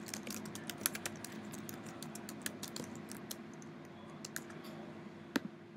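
Typing on a computer keyboard: a quick run of key clicks for about three seconds, then a few scattered keystrokes and one sharper click near the end, over a faint steady hum.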